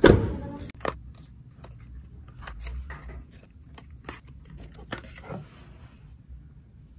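A thump at the very start, then a small cardboard carton being opened by hand: scattered clicks, crinkles and light scrapes as the flaps are pulled open and a tube slid out.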